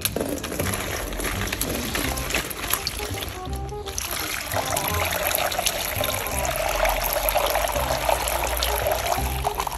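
Toy packaging being handled, rustling and crinkling with many small clicks, over background music.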